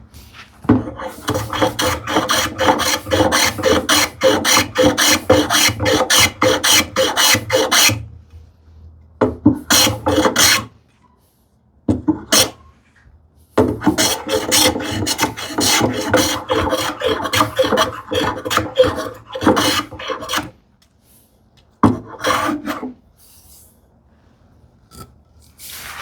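Hand plane cutting shavings off the corner of a wooden leg to round it over, with the iron set for a deep cut: quick back-and-forth strokes, about three or four a second, in runs of several seconds with short pauses between.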